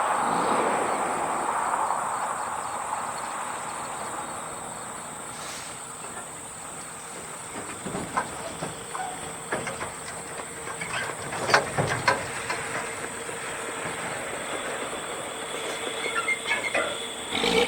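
Road traffic: a passing vehicle fades away over the first few seconds, leaving quieter road noise with scattered sharp clicks and knocks in the middle.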